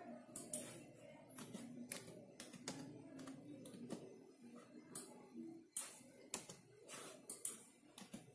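Computer keyboard and mouse being used: a dozen or so sharp clicks and key taps at irregular intervals.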